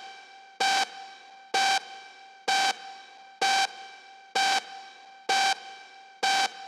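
Electronic dance music intro: a short pitched synthesizer stab repeated about once a second, seven times, each hit leaving a faint ringing tail, with no drum beat yet.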